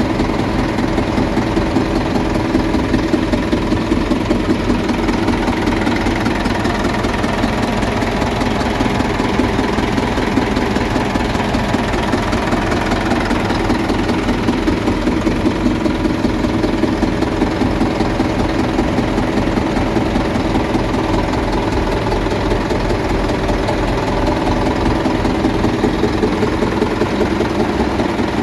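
Engine idling at about 600 rpm in neutral, with a steady, rapid knock running through the idle. The knock is more pronounced at the front of the engine.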